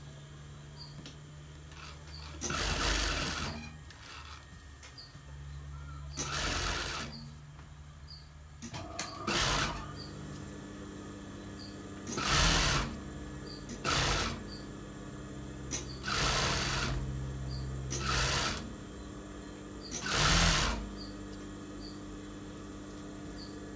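Industrial sewing machine stitching a shirt's button placket in about eight short runs of a second or less, the motor humming steadily in between.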